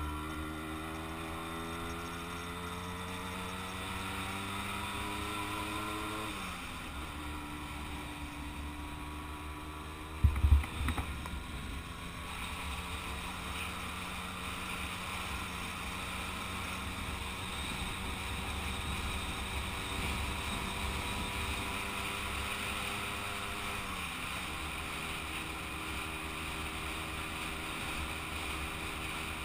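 Kreidler moped engine running under way, heard from on board. Its note climbs slowly, drops about six seconds in and shifts again near the end, over low wind rumble on the microphone. A short loud thump comes about ten seconds in.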